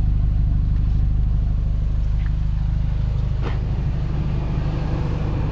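A car engine idling steadily, a low even hum that eases off a little over the few seconds, with one brief faint click about three and a half seconds in.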